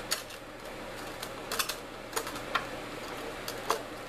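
Scattered sharp plastic clicks and taps, about nine of them at uneven intervals, as the old condensation pump's lid and float assembly are handled and worked off.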